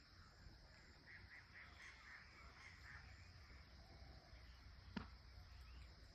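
Faint bird calls: a run of short repeated notes, followed about five seconds in by a single sharp click, over a low rumble.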